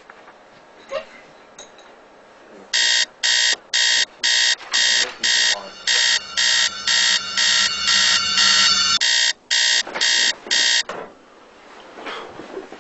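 Electronic alarm clock beeping: a fast, even string of loud, high-pitched beeps, about two or three a second, starting about three seconds in and stopping shortly before the end, with a low hum under the middle of it.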